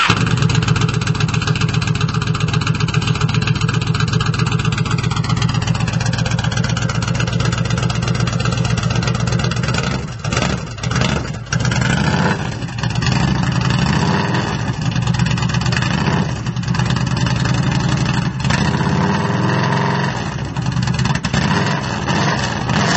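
Yamaha XVS1300 Midnight Star's V-twin engine running through an aftermarket Big Gun exhaust, with a steady low, pulsing note. The revs sink about five seconds in, and the level dips briefly a few times around ten to twelve seconds in.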